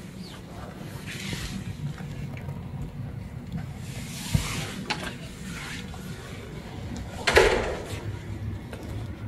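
Handling noise and rustling of a nylon jacket hood close to a handheld camera, over a low steady hum. There is a knock about four seconds in and a louder brief rustle about seven seconds in.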